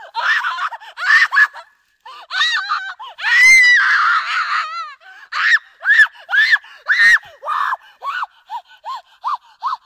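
A person screaming in high-pitched cries, with one long scream about three seconds in. It then breaks into a run of short, gasping cries, about two or three a second, that grow shorter and fainter.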